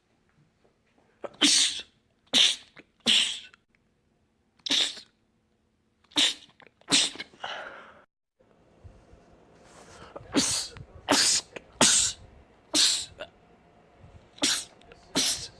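A man sneezing over and over: about a dozen short, sharp sneezes, often two or three in quick succession with brief pauses between the runs.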